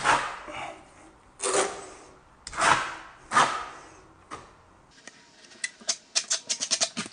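Plaster base coat being spread over a wall patch with a trowel: four scraping strokes, each fading quickly, then a quick run of light clicks and taps near the end.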